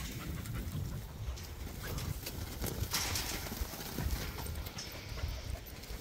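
A small mob of sheep and a Kelpie-Koolie cross working dog moving over sandy ground: irregular scuffing hoof and paw steps over a low rumble, with a short hiss about three seconds in.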